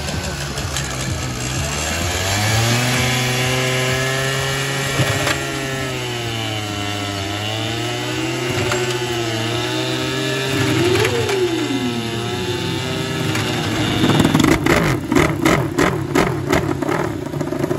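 Small Honda Dio scooter engine running hard, its wheel driving the rear tyre of a Ducati Desmosedici to roller-start the bike, its pitch wavering as the load changes. About 14 seconds in the Ducati's V4 catches and fires, louder, with sharp quick blips of the throttle.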